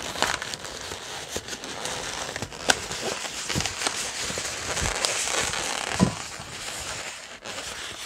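Inflated latex 260 modelling balloons rubbing and squeaking against one another and the hands as their ends are wrapped around a cluster of bubbles. Two sharper clicks stand out, a little under a third of the way in and again about three quarters in.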